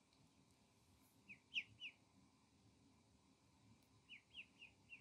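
Ducklings peeping: three short high peeps about a second and a half in, then four more in quick succession near the end.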